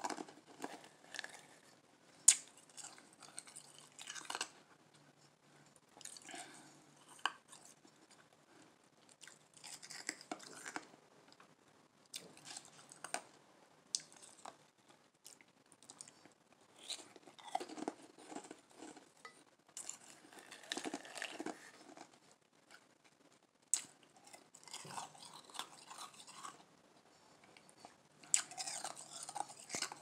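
Soft Igloo ice being crunched and chewed in the mouth, in clusters of crunches every second or two, with a few sharp clicks.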